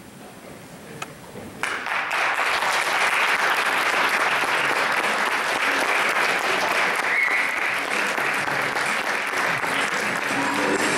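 Audience applauding: clapping breaks out suddenly about two seconds in and holds steady and dense.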